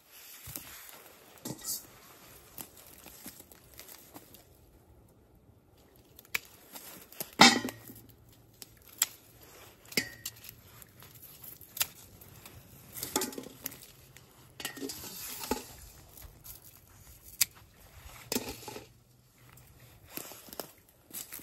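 Irregular light knocks, clinks and rustling, as of objects being handled and moved about. The loudest is a sharp knock about seven and a half seconds in, and a faint low hum runs under the middle part.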